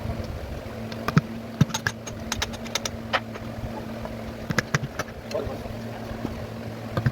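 Irregular sharp metallic clinks and taps of hand tools and parts being handled during engine repair work, over a steady low mechanical hum.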